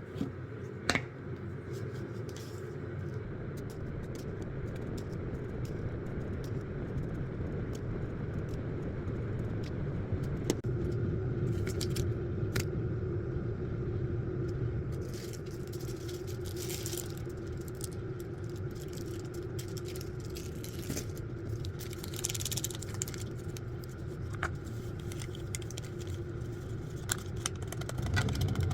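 Steady low rumble of a moving car heard from inside the cabin, with scattered small clicks and rattles.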